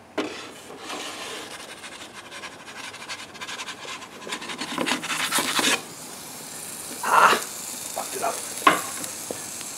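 Wooden pizza peel scraping across the baking stone of an Ooni Koda gas pizza oven as a pizza is slid off it. The rough rasping grows louder over about five seconds and stops abruptly, followed by a few brief knocks.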